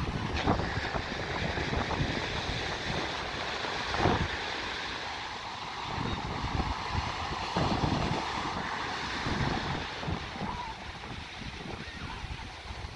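Ocean surf breaking and washing up a sandy beach, with wind buffeting the microphone in gusts.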